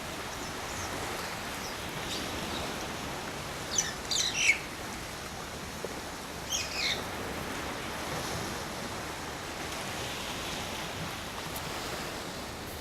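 Myna birds give two short bursts of quick, chattering high calls, one about four seconds in and another a couple of seconds later, over a steady rushing background noise.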